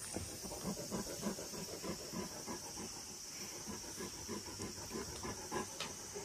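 Great Pyrenees panting close to the microphone, about four breaths a second, over a steady high hiss.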